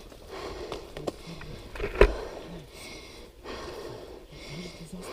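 Heavy breathing close to the microphone, in and out about once a second, with a faint voiced edge at the end of some breaths. A single sharp knock about two seconds in is the loudest sound.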